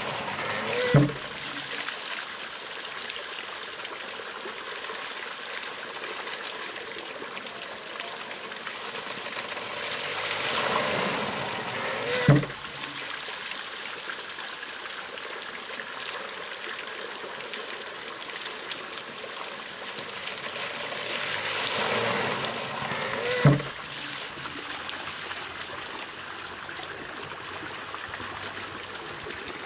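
Water trickling steadily, with a single wooden thud about every eleven seconds, three times in all. Each thud comes after a slow swell of pouring water: the rhythm of a monjolo water-powered hammer, whose trough fills and tips and whose pestle then drops into the mortar.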